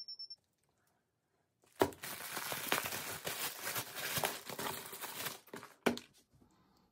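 A packaging bag crinkling as it is handled, starting sharply about two seconds in and running for a few seconds. A single sharp knock follows about a second later.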